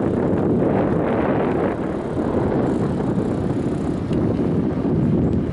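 Wind rumbling steadily on the microphone of a camera carried on a moving bicycle.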